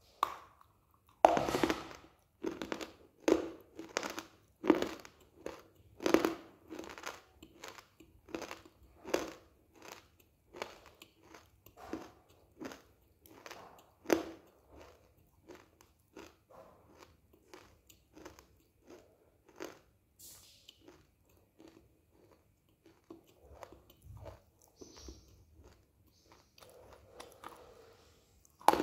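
Close-up crunching as a person bites into and chews a dry white clay bar. Sharp crunches come about every half second to second, loudest in the first few seconds and growing softer past the middle, with a fresh loud bite near the end.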